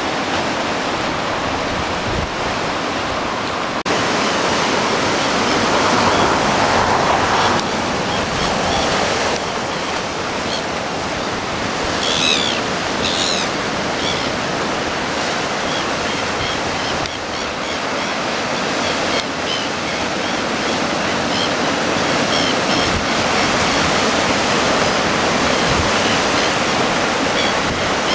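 Surf washing over a rocky shore, a steady rushing noise throughout, with a couple of short high chirps about twelve seconds in.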